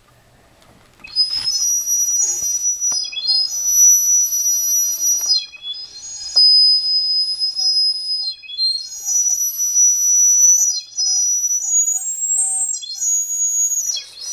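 A Lego piece blown into like a whistle, giving a high-pitched whistle of several tones at once. It starts about a second in and sounds in about six long blasts of roughly two seconds each, with short breaks between them, the pitch sagging as each blast ends.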